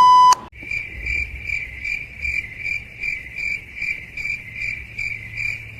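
A short loud beep, then the stock crickets-chirping sound effect: an even, high chirp repeating about two and a half times a second, the usual awkward-silence gag.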